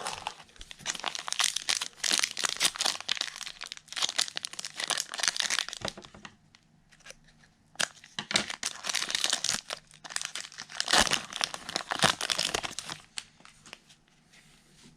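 The wrapper of a trading-card pack being torn open and crinkled by hand: spells of dense crackling, with a lull about six seconds in, then dying down near the end.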